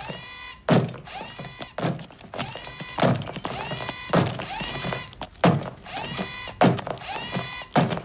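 Gear motors in the legs of the TARRY II stick-insect walking robot whining in repeated bursts about once a second as its legs step. Each burst starts with a click and rises in pitch, then holds steady.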